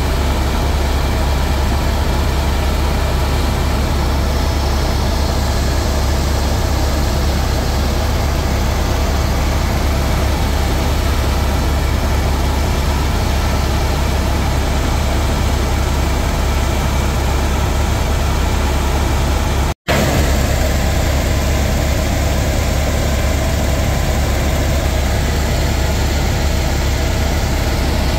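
Helicopter in flight: the rotor and engine running as a loud, steady low drone, broken off for a split second about twenty seconds in.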